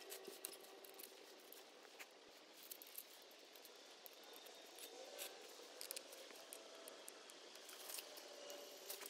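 Faint, scattered metallic clicks and light rattles of a chainsaw's saw chain and guide bar being handled as a new chain is fitted.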